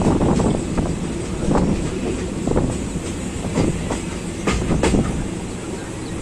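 Train running on the rails: a steady rumble with irregular clacks of the wheels over the rail joints, two sharper clacks about two-thirds of the way through.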